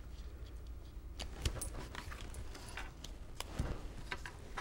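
Faint scattered taps and rustles of cardstock squares being laid and pressed down onto a paper page on a tabletop, over a low steady hum.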